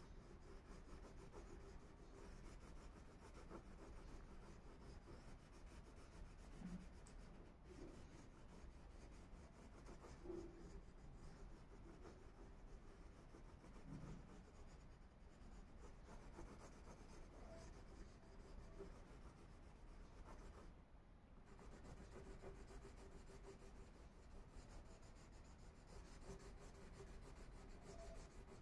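Faint scratching of a Faber-Castell crayon rubbed back and forth on paper while colouring in, over a faint steady hum.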